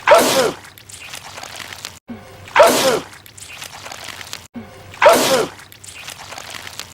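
A man sneezing loudly, the same sneeze repeated three times about two and a half seconds apart as a looped clip, with a brief dropout before each repeat.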